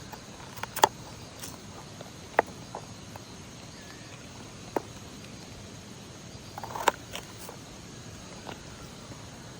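A few scattered, sharp clicks and knocks at irregular intervals, the loudest about a second in and near seven seconds in, over a faint steady outdoor background.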